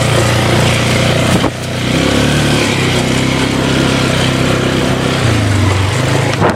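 Four-wheeler (ATV) engine running under a rider. The engine eases off about a second and a half in, then picks back up, and revs higher about five seconds in. There is a short knock just before each change.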